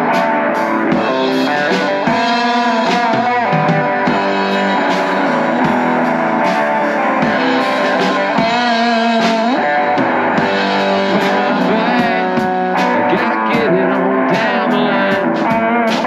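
Live electric guitar and drum kit playing an instrumental break between a chorus and the next verse: the guitar plays a lead line with bent, gliding notes over a steady drum beat with cymbals.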